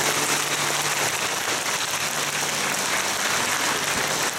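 Audience applauding steadily at the close of a song.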